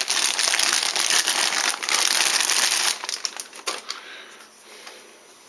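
Plastic packaging crinkling loudly as a laptop-style power adapter is handled, thinning to a few faint clicks after about three seconds.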